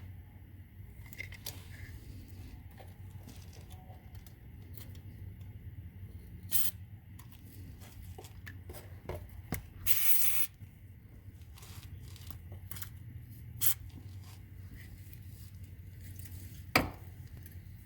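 WD-40 aerosol can sprayed in short hissing bursts onto the clutch slave cylinder fittings, penetrating oil put on to soak into rusted parts before they are loosened. The longest burst comes about ten seconds in, with a few sharp clicks and handling noises between the bursts.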